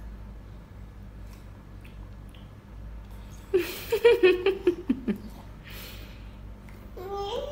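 A toddler fussing with a quick run of short, choppy whimpers about halfway through, then a rising whine near the end as he starts to cry at the sour taste of a blueberry.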